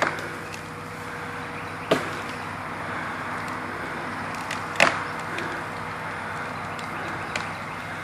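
Machine engine running steadily, with a few sharp knocks or cracks over it: one at the start, one about two seconds in and the loudest about five seconds in.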